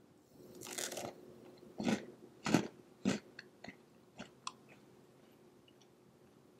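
A crisp-crusted homemade ladyfinger cookie being bitten and crunched: a short crackle, then three sharp crunches about half a second apart, then a few fainter crackles that die away.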